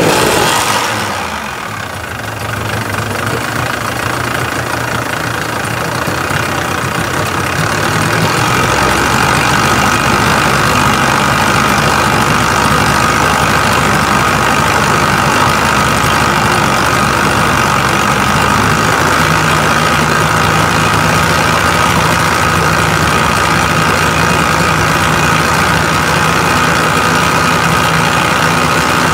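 Car engine running: the revs fall away in the first couple of seconds, then it idles steadily, stepping up slightly about eight seconds in and holding a constant whine from then on.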